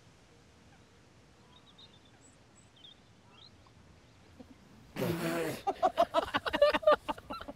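Quiet open-air ambience with a few faint, brief bird chirps. About five seconds in, a person's voice breaks in loudly with a short vocal sound, then talking.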